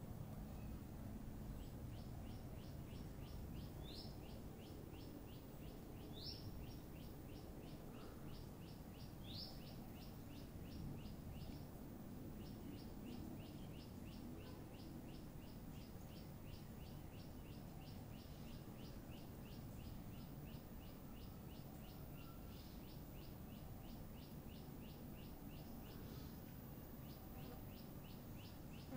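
Outdoor ambience: a steady low background rumble with a fast, even train of high chirps, about five a second, running on with a few short breaks. Three quick rising whistles sound in the first ten seconds.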